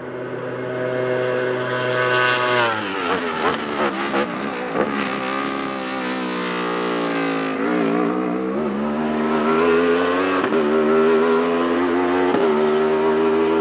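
Wolf GB08 Thunder race car's 1,000cc Aprilia RSV4 V4 superbike engine at high revs. Its pitch falls sharply about two seconds in, and quick throttle blips follow on the downshifts. It then accelerates hard, rising in pitch through several upshifts.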